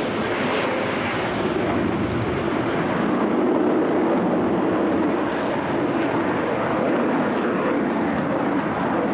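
Twin-engine jet fighter flying a display overhead: the steady rush of its jet engines, growing a little louder about three seconds in.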